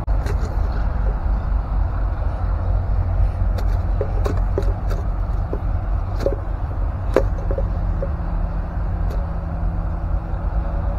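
A steady low rumble with scattered sharp clicks and crackles, most of them past the middle, as hands handle the plastic bottle, netting and bamboo of a small fish trap.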